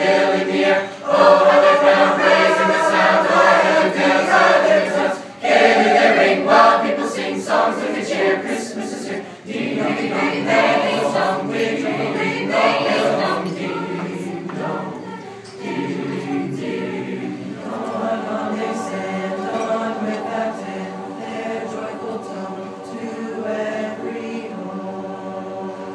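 Mixed high school swing choir of boys and girls singing a cappella in parts. Loud for the first half, then softer, with long held chords toward the end.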